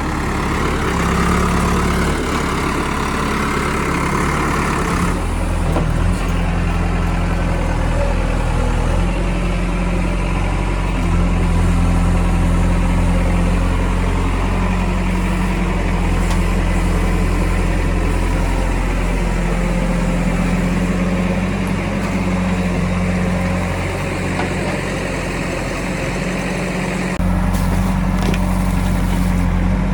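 Diesel engine of a Kirloskar-engined JCB backhoe loader running steadily, its note shifting as the load changes about five seconds in and again near the end.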